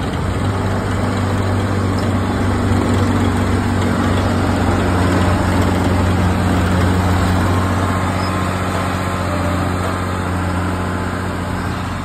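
Volvo vibratory road compactor's diesel engine running steadily, with a deep, even hum from the vibrator under it.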